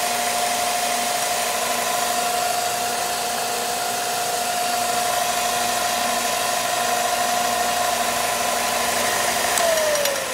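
BuckTool 4x6 belt and disc sander's direct-drive motor running at speed with a steady whine over a hiss. Near the end it is switched off and the whine starts falling in pitch as the motor coasts down slowly.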